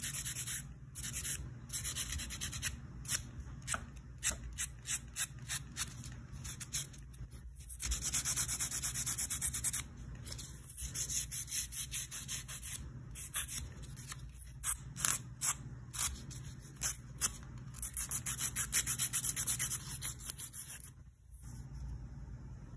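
Hand nail file rubbing back and forth across fingernails in quick strokes, in runs with short pauses between.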